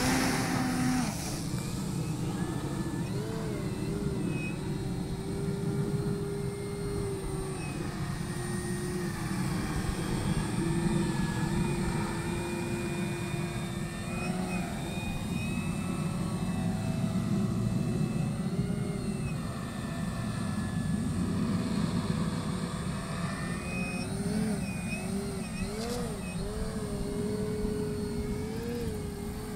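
57-inch 3DHS Extra 330SC radio-controlled aerobatic plane's motor and propeller, throttling up for takeoff and then flying manoeuvres. Its pitch rises and falls again and again with the throttle.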